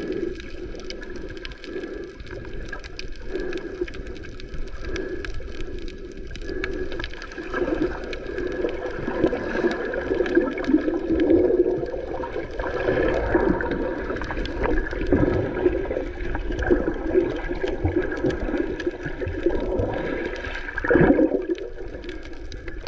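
Muffled underwater sound picked up by a submerged action camera: water rushing and bubbling, with a faint steady hum and many small crackling clicks. It swells louder about halfway through and again near the end.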